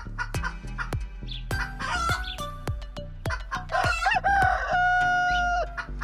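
A rooster crowing once about four seconds in, ending on a long held note, over background music with a steady beat.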